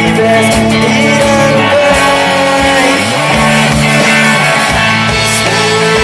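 Live rock band playing: two electric guitars, bass guitar and drums, with held guitar notes over a steady drum beat.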